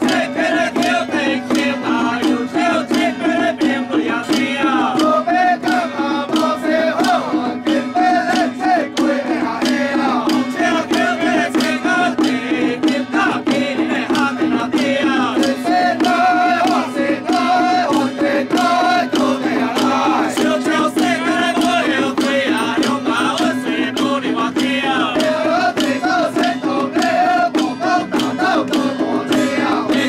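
Temple ritual percussion, drums and gongs beaten in a fast, steady rhythm, with a group of men chanting over it: music of a Taiwanese folk-religion deity-invitation rite.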